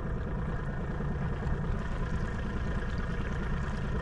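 Boat motor running steadily at low trolling speed, a constant low hum.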